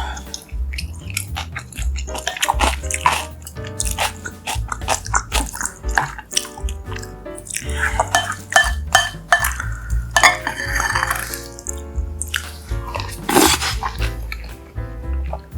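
Background music with a steady bass line, over eating sounds: many short clicks of a spoon against a bowl, and chewing.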